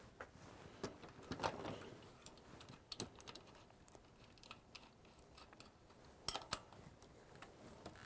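Faint, scattered metallic clicks and light knocks as a bicycle front wheel's axle is seated in the fork dropouts and its axle nuts are put on by hand, with a sharper pair of clicks near the end.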